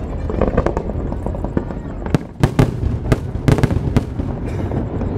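Fireworks going off over a crowd, with a quick run of sharp bangs and crackles in the middle.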